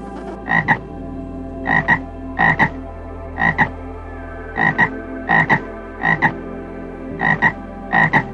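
An animal calling in short double notes, about nine calls at a steady pace of roughly one a second, over steady background tones.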